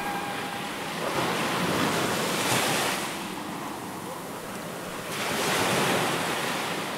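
Waves washing on a shore: a rushing noise that swells and ebbs twice.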